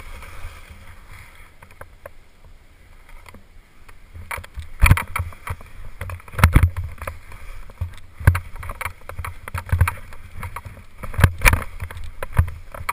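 Skis running through snow on a steep descent, heard through a head-mounted camera's microphone. The first few seconds are a soft hiss; from about four seconds in come repeated sharp knocks and thumps as the skis hit bumps and the camera jolts.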